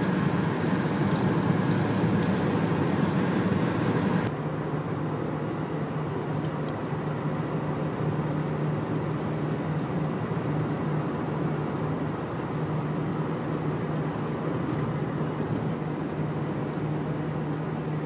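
Steady road and engine noise inside a car cruising on a highway, with a low steady drone under it. About four seconds in the sound changes abruptly, becoming a little quieter with less high hiss.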